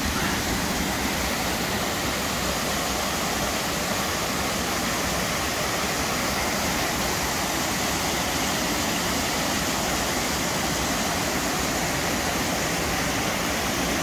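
Small waterfall and rocky stream cascades: a steady, even rush of water.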